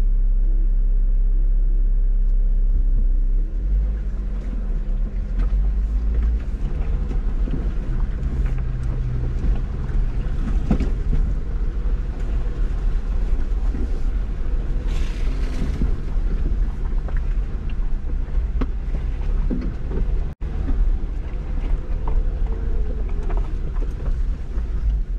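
Jeep engine idling steadily, then pulling away about three seconds in and crawling slowly up a rocky trail. Its uneven low rumble is broken by scattered knocks and scrapes of the tires and chassis over rock.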